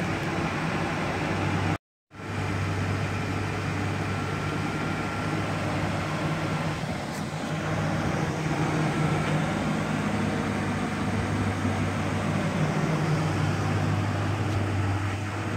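2004 Ford F-150's engine idling steadily with a low, even hum; the sound cuts out briefly about two seconds in.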